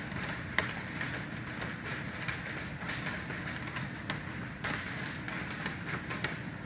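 Steady background hum with irregular light ticks and taps scattered through it, the sharpest about half a second in.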